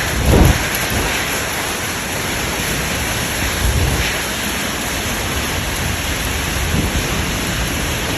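Severe thunderstorm: heavy rain and wind making a steady dense noise, with low rumbling surges about half a second in and again around four seconds.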